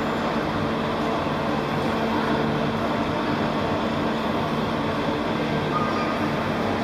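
Giant walking mechanical elephant running: a steady, even machine noise with a low hum from its diesel-driven hydraulics, with no pauses or sharp knocks.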